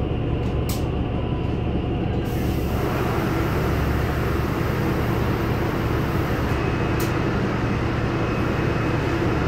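Inside a NefAZ-5299 city bus on the move: a steady low engine drone and running noise, with a broad hiss that comes in about two seconds in and holds. Two short clicks sound, one near the start and one about seven seconds in.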